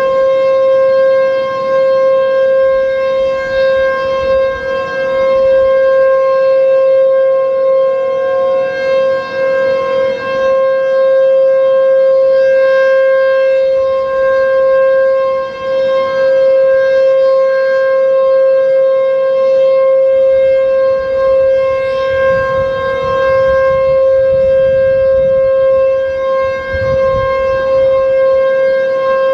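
H.O.R. Super-Sirex 50 HP outdoor warning siren sounding its steady alert signal, one held pitch with strong overtones, echoing off buildings. Fainter tones from other distant warning sirens come and go underneath.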